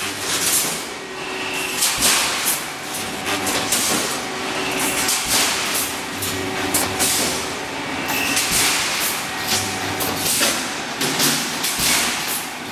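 Pneumatic wire mesh welding machine running: a quick series of hisses and metallic clanks as its air-driven welding heads cycle, with a low hum that swells and fades every two to three seconds.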